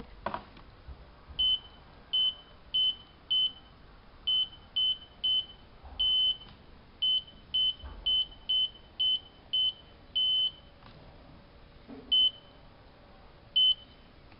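Electronic control panel of a hanseatic HWM814A3D washing machine beeping: a run of short, identical high beeps at an uneven pace, a couple held slightly longer, as buttons or the program selector are worked.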